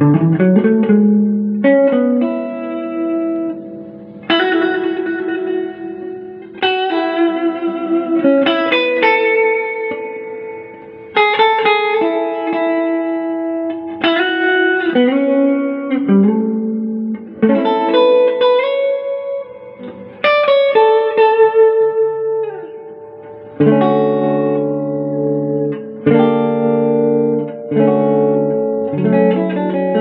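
Tobacco-sunburst Les Paul-style electric guitar playing picked chords and single notes, each left to ring and fade, with a new phrase struck every second or two.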